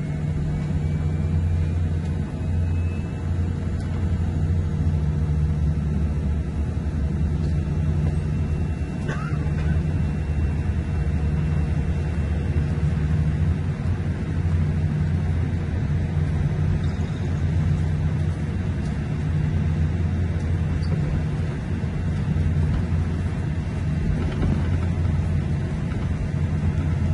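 Steady low rumble in the cabin of a Boeing 787 taxiing after landing, from the engines at idle and the wheels rolling over the taxiway.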